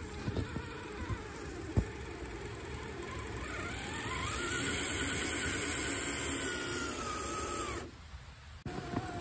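Electric motor and gear drivetrain of an RC scale crawler whining under load as it climbs through snow. The whine rises in pitch about four seconds in, holds steady, then stops abruptly near the end. A few sharp clicks and knocks come in the first two seconds.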